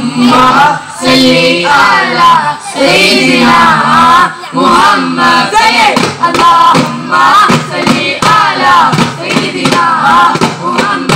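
Duffmuttu: a group of male voices sing a devotional chorus together, with daf frame drums struck in rhythm.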